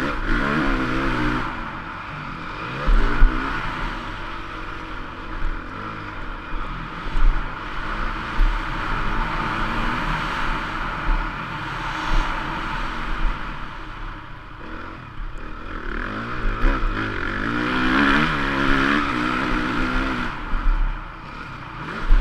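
Stock 2014 Honda CRF450's single-cylinder four-stroke engine revving up and down with the throttle through a motocross lap, heard from a helmet mount with steady wind rush. It pulls hardest at the start and again near the end, and short sharp knocks break in now and then.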